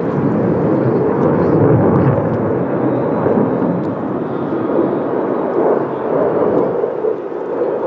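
Jet noise from an F-35A Lightning II's single F135 turbofan as the fighter pulls a tight turn: a loud, steady rumbling rush that swells about two seconds in and eases slightly later on.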